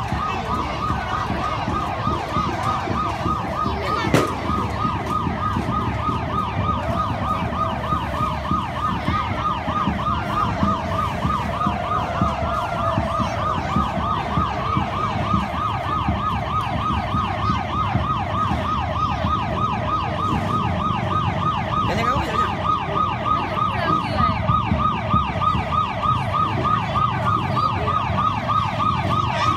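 Electronic siren sounding a fast yelp, its rising-and-falling wail repeating several times a second without a break, over a low rumble.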